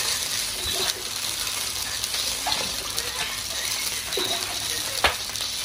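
Big wok of rapeseed oil and fish pieces, just topped up with water, bubbling and sizzling steadily, with a sharp click about five seconds in.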